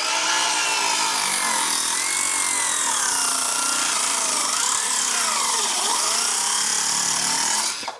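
Electric circular saw cutting through a wooden rafter board, its motor pitch wavering as it dips and recovers under load. It runs loud and steady, then stops suddenly near the end.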